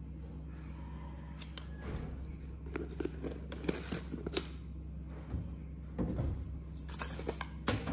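Light clicks and taps of kitchenware being handled on a tabletop (a metal spoon in a ceramic bowl, a plastic sugar container set down), scattered through the middle and again near the end, over a steady low hum.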